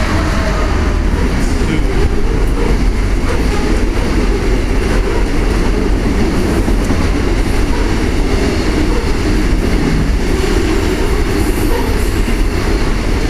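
Freight train of about 21 wagons passing at speed, a loud steady rumble of wheels on rail that does not let up.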